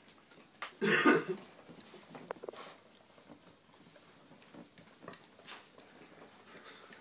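A single loud, short cough about a second in, then faint rustling and small clicks.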